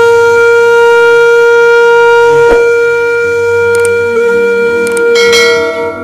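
Closing music of a song: one long held note with a soft backing, beginning to fade out near the end.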